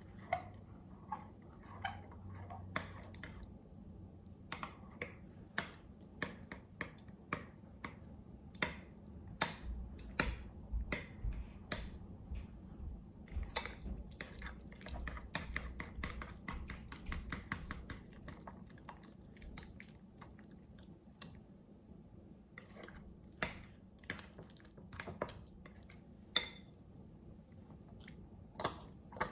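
Sticky glue-and-Vaseline slime being mixed and worked, giving many irregular wet clicks and squelches.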